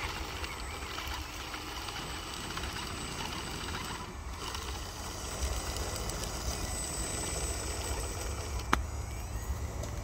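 Radio-controlled model crawler bulldozer running steadily as it pushes dirt, with the mechanical noise of its drive and tracks. A single sharp click comes near the end.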